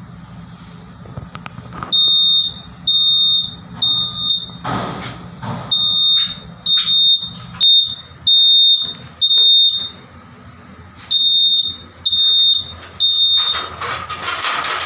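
Fire alarm set off by a smoke detector test, beeping a high-pitched electronic tone in half-second pulses about twice a second. The beeping starts about two seconds in. Bursts of hiss come about five seconds in and again near the end.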